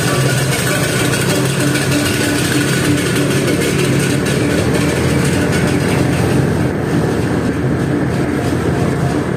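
Motor scooter engine running steadily while riding in street traffic, with other motorbikes and cars around: a constant low hum under a noisy rush.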